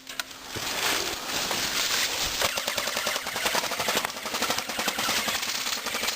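Airsoft guns firing rapid automatic bursts, a fast rattle of clicks that starts about half a second in and keeps going.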